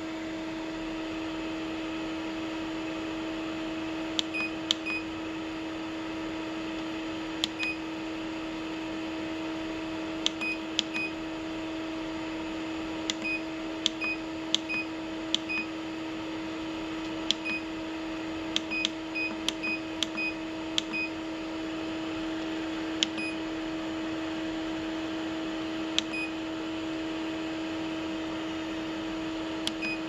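Epson CW-6000A printer's cooling fan running with a steady, noisy hum, the tiny 40 mm 5 V fan at full speed. Over it the control-panel buttons give about twenty short clicks, each with a brief beep, at irregular intervals.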